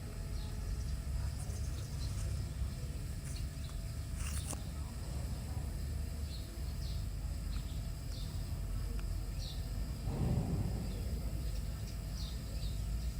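Outdoor ambience: a steady low rumble with faint, short bird chirps now and then, and a brief noisy burst about ten seconds in.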